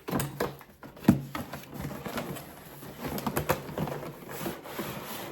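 Cardboard box and packaging being opened and handled by hand: irregular knocks, scrapes and rustles, with a sharp knock about a second in.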